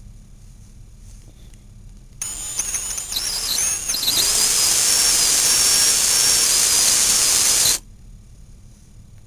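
Cordless drill boring a small kingpin hole partway into a wooden fingerboard deck. It starts about two seconds in, climbs in speed, holds a steady high whine for a few seconds, then stops abruptly.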